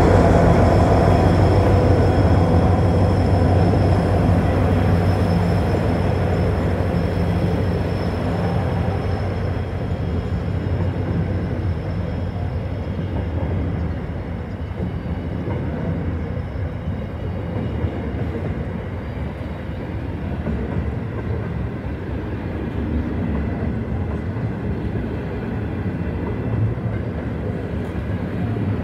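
Freight train passing close by, led by Genesee & Wyoming Australia diesel locomotives GWU 003 and CLP 14. The locomotive engines drone steadily and fade out over the first ten seconds or so. Then comes the steady rumble and rattle of loaded container wagons rolling past on the rails.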